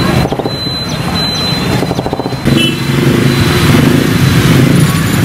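A motorcycle engine running close by, pulsing evenly, amid street traffic noise. About two and a half seconds in, the sound shifts abruptly to a louder, denser mix of traffic.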